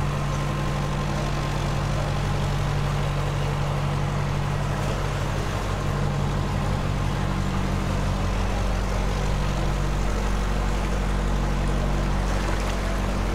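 Narrowboat's inboard diesel engine running steadily at cruising speed, a low even hum.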